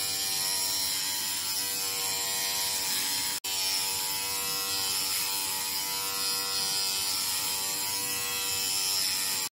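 Battery-powered Xiaomi Grooming Kit Pro body trimmer running with a steady buzz while it is drawn over chest hair. It drops out for an instant about three and a half seconds in.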